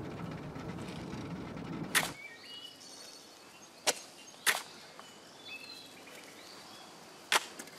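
A steady low rumble of road noise inside a moving car, then shovels digging into earth: a few sharp strikes of the blades into the soil, with faint bird chirps.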